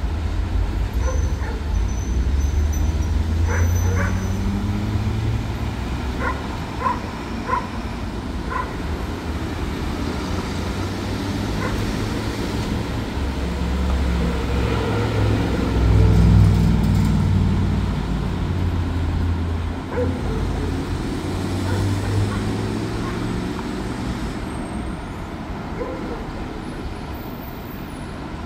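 Road traffic passing through a city intersection: a steady rumble of car and truck engines and tyres, swelling to its loudest a little past the middle and easing off toward the end. A few short, sharp higher sounds cut through in the first third.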